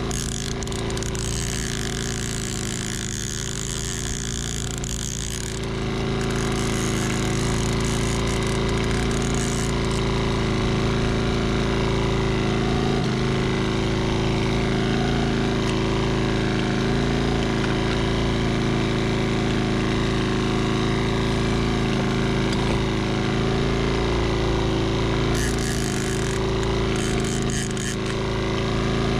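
Outboard motor running steadily at trolling speed, a constant low hum that grows a little louder about six seconds in.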